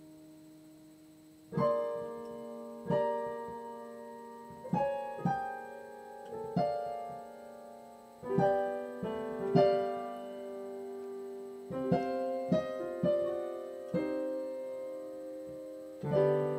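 Piano played slowly: a held chord dies away, then about a second and a half in, chords and short groups of notes are struck one to two seconds apart and each is left to ring and fade.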